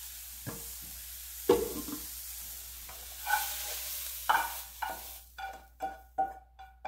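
Hot fried mushrooms sizzling as a spatula scrapes them out of a metal frying pan into a pot, with a few knocks. From about three seconds in, the spatula taps and scrapes against the pan in a quick run, about three a second, the pan ringing each time, while the sizzle dies away.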